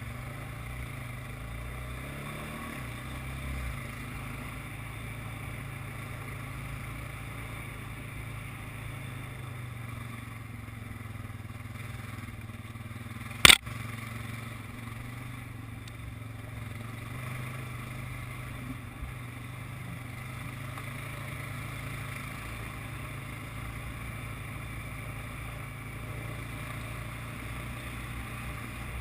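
ATV engine running fairly steadily under way. There is a single sharp knock about halfway through, much louder than the engine.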